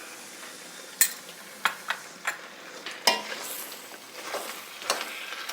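Chicken curry mixture with onion, potato and tomato sizzling in a pan while being stirred, a spoon knocking against the pan several times.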